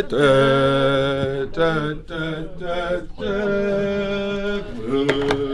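Voices singing long held notes without instruments, in several phrases with short breaks between them.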